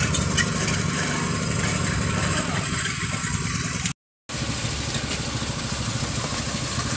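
Concrete mixer truck's diesel engine running steadily while the drum turns during a concrete pour, with a brief total dropout about four seconds in.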